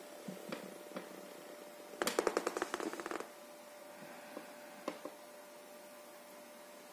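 A rapid run of clicks lasting about a second, about two seconds in, amid scattered single clicks over a faint steady hum.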